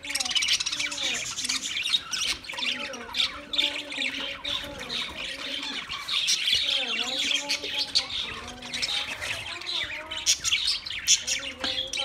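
A flock of budgerigars chattering without a break, a dense mix of quick chirps, warbles and squawks.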